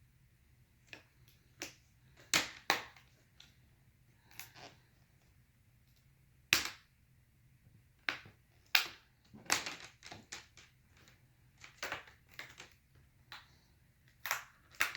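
Plastic snap clips of a Dell Inspiron 15 5567 laptop's screen bezel clicking and cracking as the bezel is pried off the display: irregular sharp clicks, a few of them louder cracks, some in quick pairs.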